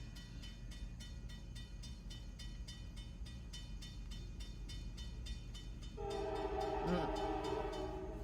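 Air horn of a CSX locomotive sounding one held multi-tone blast that starts suddenly about six seconds in. It plays over a low rumble, and a quick, even ticking runs throughout.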